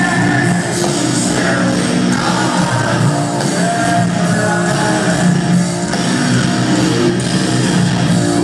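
Loud live heavy rock band playing, with distorted electric guitar and a singer's voice over the band, heard from within the audience with little deep bass.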